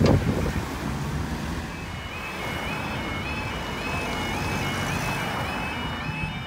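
Level crossing warning alarm starting up about two seconds in: a repeating warble of rising tones, several pitches at once, which signals that the crossing is about to close. A loud rumble fades away at the very start.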